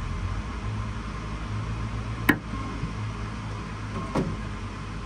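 Stratasys Objet 260 Connex3 3D printer running with a steady low hum, broken by a sharp click a little over two seconds in and a softer click about four seconds in.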